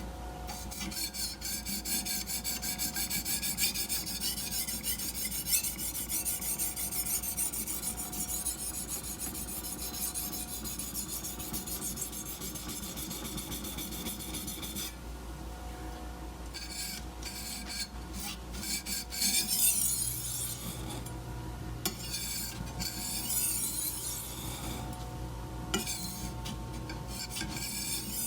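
Steel chef's knife blade stroked repeatedly across a dry sharpening stone, a continuous rasping scrape with short pauses about 15 and 21 seconds in. The knife is on the finer stones, refining the edge.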